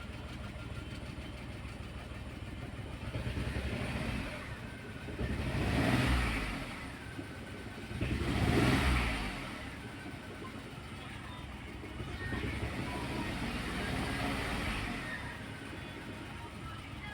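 Engine of a petrol car fitted with a CNG kit, idling and blipped up four times. The two revs in the middle, about 6 and 9 seconds in, are the loudest, each rising and then falling back to idle.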